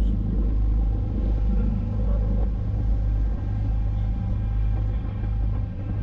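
Sportfishing boat's engine running underway: a steady low drone, with water washing along the hull.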